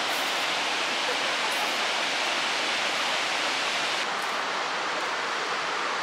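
Fukuroda Falls, a large tiered waterfall, pouring down a rock face in a steady rushing roar of falling water.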